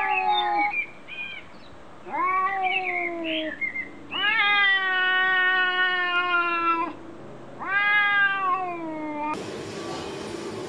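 Cat meowing in four long, drawn-out calls, each rising then slowly falling in pitch; the third is the longest, at over two seconds. Near the end the calls stop and a steady hiss comes in abruptly.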